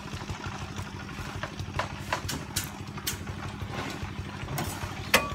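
An engine idling steadily: a low, fast-pulsing rumble with a constant hum, under scattered sharp clicks, the sharpest near the end.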